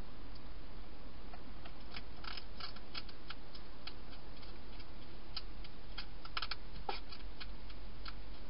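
Wild hedgehog crunching its food inside a plastic feeding box: irregular sharp clicks in clusters, over a steady hiss.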